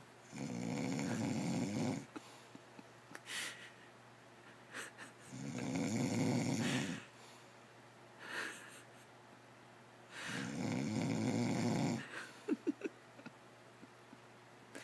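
Snoring in deep sleep: three long, loud snores of about two seconds each, roughly five seconds apart, with fainter short breaths between them and a few brief squeaks near the end.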